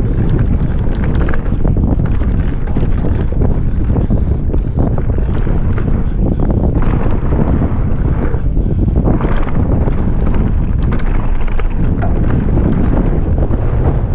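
Wind buffeting the microphone over the rumble and chatter of a downhill mountain bike running fast on a dirt trail, tyres on loose ground and the bike rattling over bumps.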